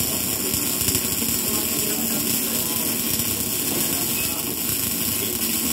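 GMAW (MIG) welding arc burning continuously on steel: a steady, even crackling hiss.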